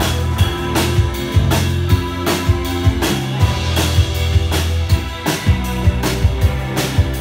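Live band playing: a drum kit keeps a steady beat with regular snare and cymbal strikes over sustained electric bass notes and guitar.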